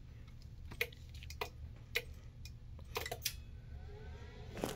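About six separate faint clicks over a low steady hum as a Rigel SafeTest 50 electrical safety analyzer switches mains power onto the equipment under test for a chassis leakage test, with a faint rising tone shortly before the end.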